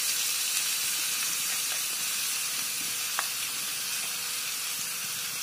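Grated garlic sizzling in hot oil in a small non-stick pan as it is stirred with a steel spoon: a steady frying hiss that eases slightly, with one light click about three seconds in. The garlic is being fried only briefly to take off its raw edge in a tempering of oil with mustard seeds, fenugreek and asafoetida.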